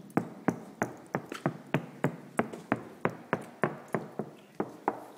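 Knuckles knocking steadily on a Toyota Prius NHW20 door panel that has been treated with DIY sound-deadening material, about three knocks a second. It is a knock test of how dull the treated door sounds.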